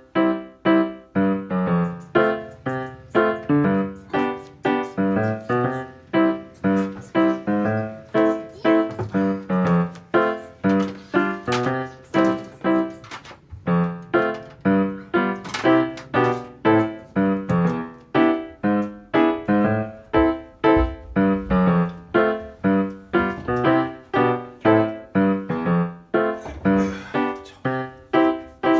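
Background piano music: a steady run of struck notes, about two a second.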